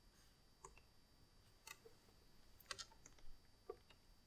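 Near silence broken by a handful of faint, scattered clicks from someone working a laptop's controls.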